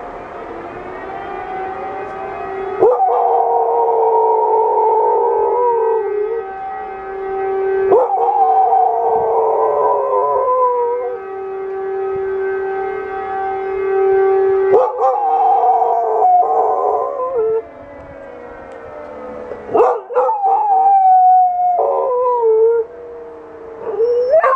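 Dog howling along with a wailing warning siren: the siren's steady tone runs underneath, and from about three seconds in the dog gives a series of long, wavering howls, the later ones shorter.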